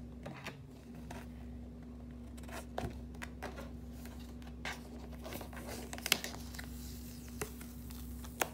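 Cardstock being peeled off a sticky cutting mat: light crackling with a few sharp ticks, the sharpest about six seconds in, over a steady low hum.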